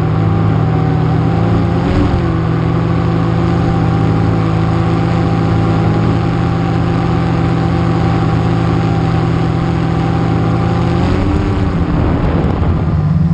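Quadcopter drone's electric motors and propellers running with a steady, even hum heard close up from its onboard camera. The pitch shifts briefly about two seconds in and again near the end as the motors change speed.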